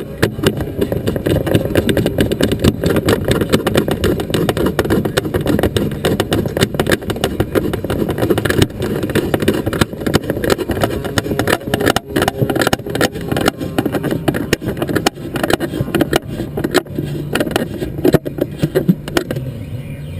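Onboard audio of a small FPV aircraft in flight: the motor and propeller run under loud wind buffeting on the camera's microphone, a dense crackling rush that keeps on steadily throughout.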